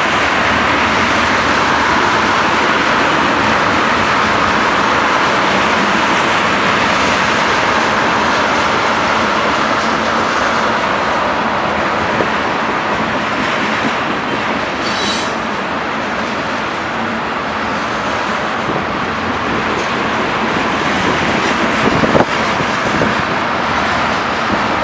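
Freight train of tank cars rolling past: a steady rumble and clatter of steel wheels on the rails. There is a brief high squeal about fifteen seconds in and a sharp clank a few seconds before the end.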